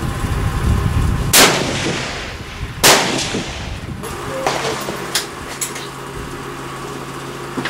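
Two rifle shots on an outdoor range, about a second and a half apart, each a sharp crack trailing off in a ringing echo. A few fainter clicks follow.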